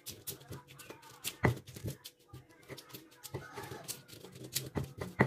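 Stone pestle crushing and grinding boiled chilies, shallots and garlic in a volcanic-stone mortar (cobek): irregular soft knocks, scrapes and squishes of stone on stone through the wet vegetables, with a sharper knock about a second and a half in and another near the end. The chilies are being worked to a coarse, half-smooth paste.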